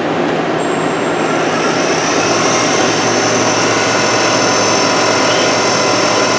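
Spindle of a Southwestern Industries Trak DPM2 CNC vertical mill running up to about 1200 RPM. A high, steady whine comes in over the machine's hum about a second and a half in and holds.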